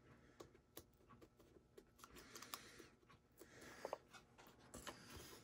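Faint handling of cardstock: soft paper rustling and light scattered taps as fingers press foam dimensionals onto a card layer and lift the paper.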